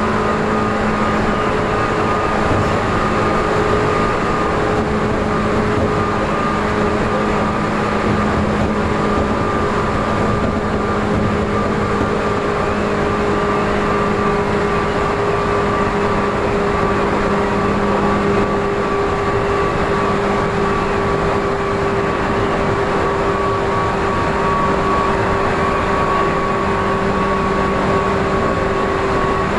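Tokyu 8500 series electric train running at speed, heard from inside the car: loud motor whine in several steady tones over the rumble of wheels on track, the tones easing slowly down in pitch.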